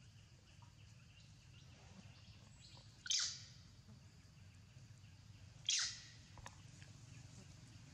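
Baby macaque giving two short, high-pitched squeals that fall in pitch, about two and a half seconds apart.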